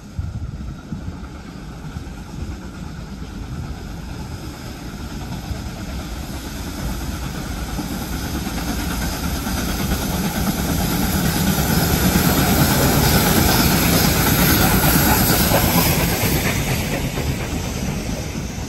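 Double-headed steam train, Victorian Railways R class R766 leading NSW 59 class 5917, approaching and passing close by with steam hissing and the locomotives running. It grows steadily louder to a peak as the engines go past, then eases as the carriages roll by.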